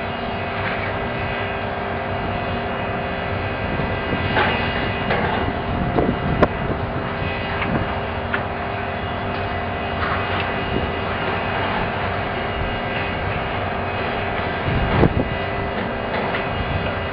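Diesel hydraulic excavators running with a steady engine drone, with scattered clanks and crashes of concrete and debris breaking as they demolish a building; the sharpest crashes come about six seconds in and again late on.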